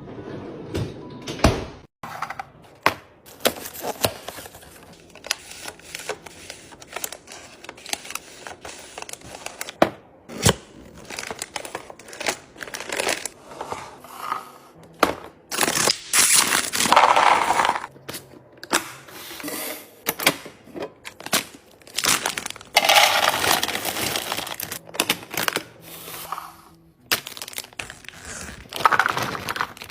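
Packaging being handled: plastic wrappers crinkling and tearing in rustling bursts, with many sharp clicks and knocks as packages and containers are set down and moved.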